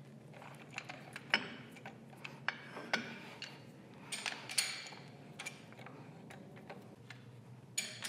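Irregular light metal clicks and clinks as a metal part is turned and seated by hand against the steel jaws of a four-jaw lathe chuck, over a low steady hum.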